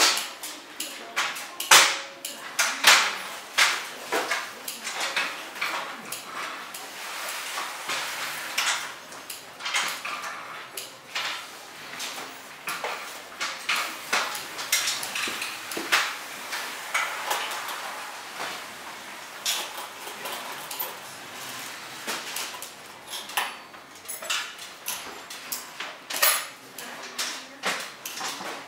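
Irregular small clicks, taps and light metallic clinks of hands working with small metal parts and material at a sewing machine table. There is no steady machine run.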